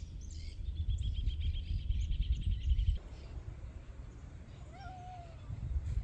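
Wind rumbling on the microphone, with a rapid high-pitched trill of about a dozen notes a second over the first three seconds. The wind drops suddenly at about three seconds, and a short, faint call sounds about five seconds in.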